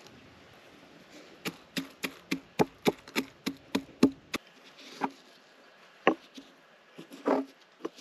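Stone pestle pounding shelled walnut kernels in a stone mortar: a quick run of about a dozen sharp knocks, some three to four a second, then a few slower single strikes.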